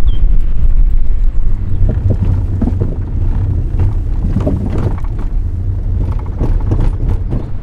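Car driving slowly over a rough gravel track: a steady low rumble of engine and tyres, with irregular knocks and crunches from stones and bumps under the wheels.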